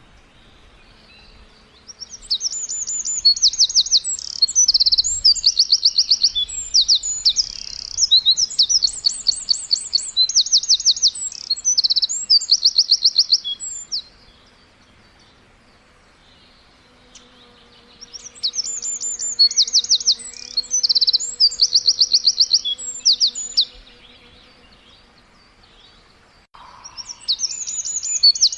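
A songbird singing in bouts of rapid, high trills of quickly repeated notes, each bout lasting several seconds, with quieter pauses in between.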